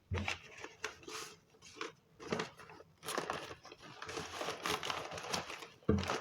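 Packaging being handled and folded while an order is packed, with irregular crinkling and rustling that gets denser in the second half. A knock comes near the end.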